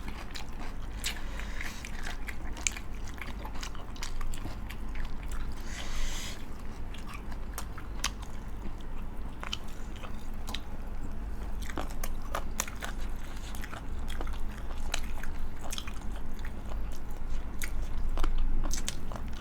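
Close-miked eating: chewing and biting with many small wet clicks and occasional crunchy bites, one louder crunch about six seconds in.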